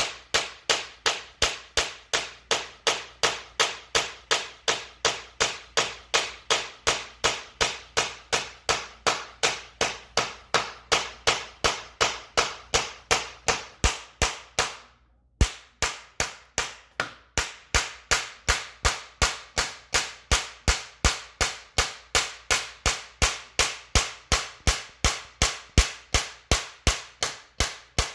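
Rapid, evenly paced hammer taps, about three a second, knocking a vinyl floor plank along to close the gap at its end joint, with a brief break about halfway.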